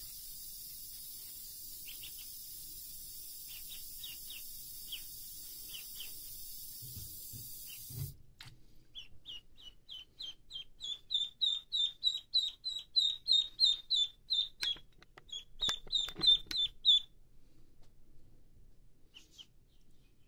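Duckling peeping. At first there are scattered faint peeps over a tap running into a water-filled sink. The running water stops about eight seconds in, and the duckling then peeps in a fast run of short, high calls, about three a second, for some eight seconds, before dropping to a few faint peeps.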